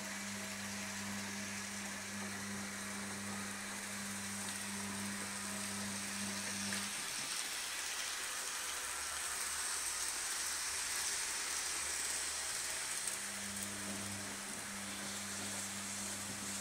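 Electric model train running on a sectional floor track: a steady hiss, with a low electrical hum that drops out for about six seconds in the middle and then returns.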